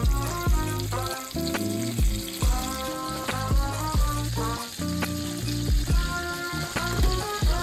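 Food sizzling in a frying pan, a steady hiss, under background music with a melody, bass and a steady beat.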